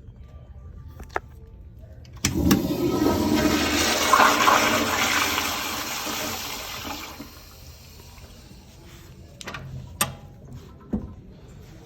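A Crane Plumbing toilet flushing. A sudden rush of water starts about two seconds in, runs loud for a few seconds, then fades away. A couple of light clicks follow near the end.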